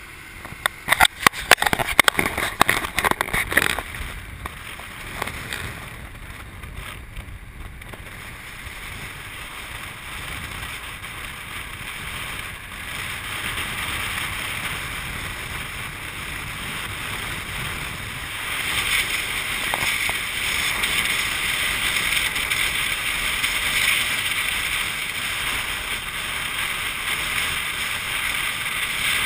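Wind rushing over the microphone and road noise from a motorbike taxi in motion through city traffic. Rough knocks and rubbing in the first few seconds as the camera is handled, then a steady rush that gets louder after about 18 seconds as the bike picks up speed.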